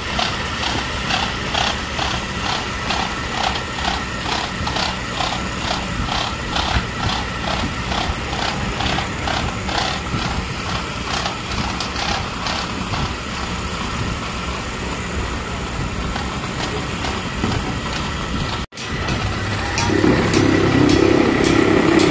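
Small metal-turning lathe running, with a regular tick about two to three times a second. The sound cuts out for an instant near the end and comes back louder, with a stronger hum.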